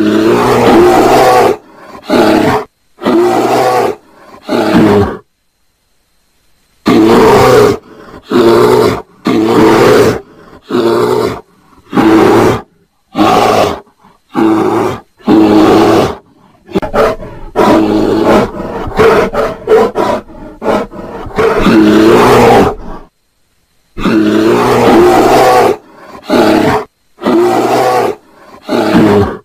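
Bears roaring and growling in a long series of loud, rough calls, each about half a second to two seconds long, that cut off abruptly into dead silence between them. These are bear mating roars.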